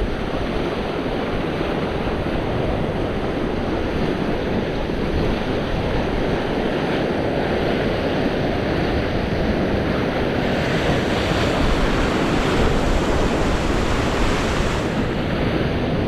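Sea surf washing against a rocky shore, with wind on the microphone. A surge of surf grows louder and hissier from about ten seconds in for several seconds.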